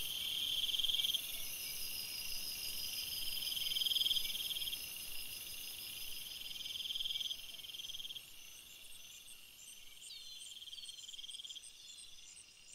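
Chorus of trilling insects, cricket-like, swelling and fading in bouts for the first seven seconds or so, over a thin high steady buzz. In the last few seconds the trills fade and a run of short high chirps, about three a second, plays with a few quick falling chirps.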